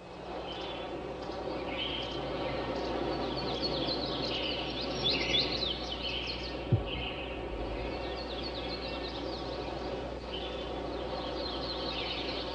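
Birds chirping over a steady outdoor background noise, with a single short low thump about seven seconds in.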